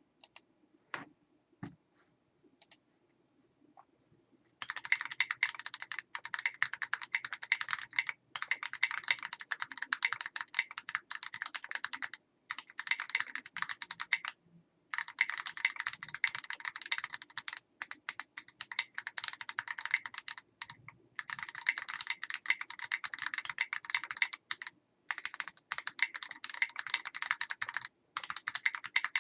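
Fast typing on a mechanical keyboard with factory-greased Gateron Ink Kangaroo switches, a brass plate, KAT keycaps and foam dampening in the case. A few isolated keypresses come first, then from about four and a half seconds in a steady run of fast keystrokes broken by short pauses.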